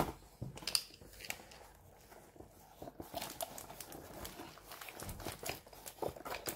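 Faint handling noises of a diamond painting kit's packaging: scattered light clicks, taps and rustles as the box and bagged drills are moved about on a wooden table.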